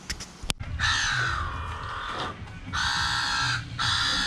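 A crow cawing: three long, drawn-out harsh calls, the first about a second in and the others close together after it.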